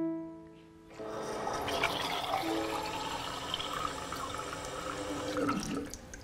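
Bathroom sink tap running into a small plastic toy watering can. The water starts about a second in and stops shortly before the end.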